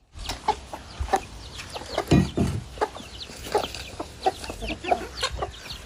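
Broiler chickens peeping and clucking while they feed, many short falling calls overlapping, one louder call about two seconds in.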